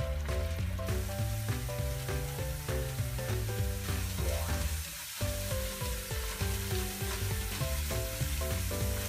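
Sweet potato sticks sizzling as they fry in hot oil in a frying pan, a steady crackling hiss. Background music plays underneath, with a brief break in it about five seconds in.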